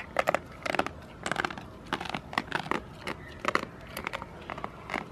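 Goats crunching treats taken from a hand: a quick, irregular run of short, crisp crunches, about two a second.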